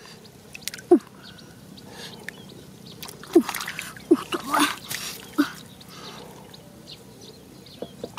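Hands groping and squelching in shallow muddy water, with a handful of short wet squelches and plops scattered through a low trickling background.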